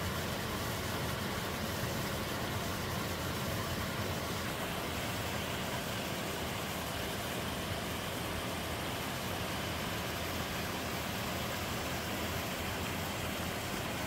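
Small waterfall in a rocky mountain stream, pouring over boulders into a pool: a steady, even rush of water.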